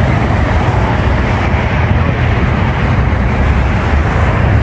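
DeLorean DMC-12 with its V6 engine running steadily as the car drives off, a loud continuous low rumble.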